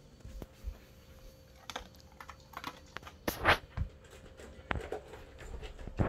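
A large dog eating from a stainless steel bowl: irregular crunching and small clinks of food against the metal, the loudest about three and a half seconds in.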